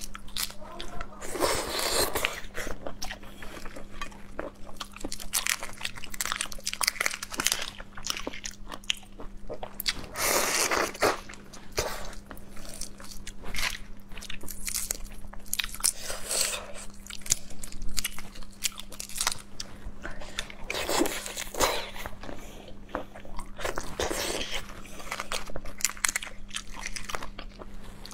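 Close-miked crackling and snapping of cooked red shrimp shells being pulled apart by hand, with bites and chewing as the shrimp is eaten near the end. A steady low hum runs underneath.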